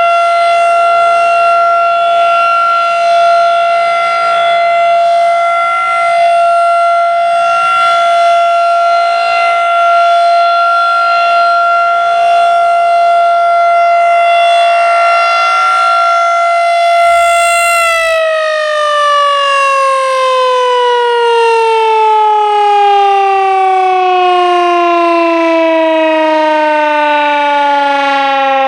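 Federal Signal 2001-SRN rotating outdoor warning siren sounding its steady alert tone, then winding down about 18 seconds in, its pitch falling smoothly as the rotor coasts to a stop at the end of the three-minute alert cycle. A brief noise comes just as the wind-down begins.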